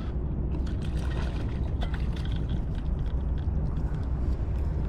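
Water splashing and gurgling beside a kayak as a hooked fish is reeled in on a baitcasting reel, with scattered light clicks over a steady low rumble.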